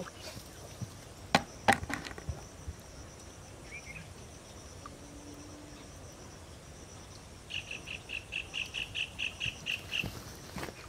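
Outdoor insect chorus as a steady high hum, with a rhythmic chirping call of about five pulses a second for a couple of seconds near the end. Two sharp knocks a little over a second in are the loudest sounds.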